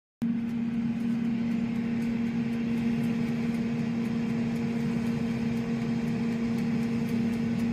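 Air fryer's fan and heater running with a steady hum and a low tone, starting abruptly, with faint regular ticks.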